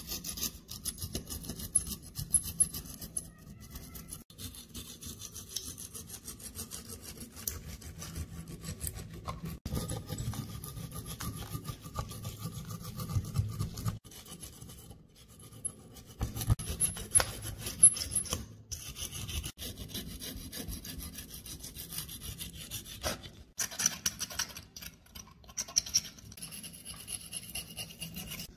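Steel pick scraping thick, crusty rust off the frame of a rusted Tokarev TT-33 pistol: a continuous run of short, gritty scrapes that stops briefly a few times.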